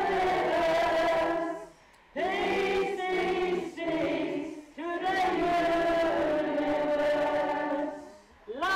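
A crowd of voices singing an action song together in three long phrases of held notes, with short breath pauses about two seconds in, just under five seconds in, and near the end.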